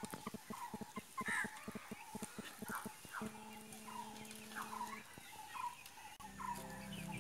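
Chickens clucking: a run of short calls, a few a second, each sliding down in pitch.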